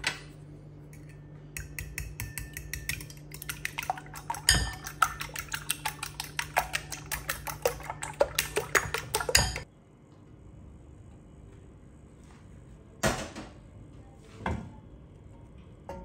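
Metal fork whisking raw eggs in a ceramic bowl: rapid clinks of the fork against the bowl for about eight seconds, which then stop abruptly. Two separate knocks follow near the end.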